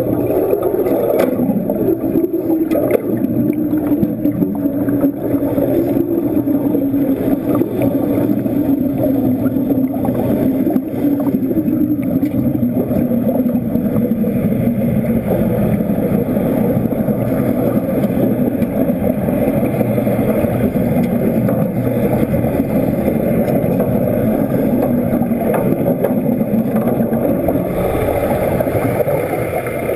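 A steady, unbroken mechanical drone heard underwater, its pitch slowly sinking.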